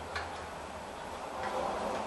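Light metallic clicks and ticks as a front brake caliper's slide-pin bolt is unscrewed by hand, with a brief rustle near the end.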